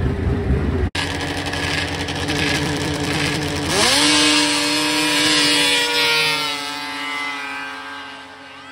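Racing snowmobiles at the start line running rough and crackly, then launching: about four seconds in the engine pitch sweeps sharply up and holds a steady high whine that slowly fades as the sleds climb the hill. A different engine din before an abrupt cut about a second in.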